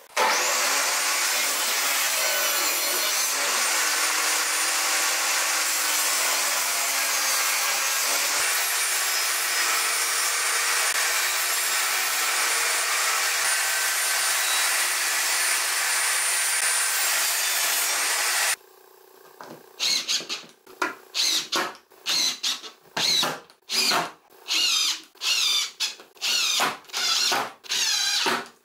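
A table saw running steadily as it rips a pine pallet board, for about eighteen seconds. It then gives way to a cordless drill-driver run in about ten short bursts, driving screws into a wooden frame.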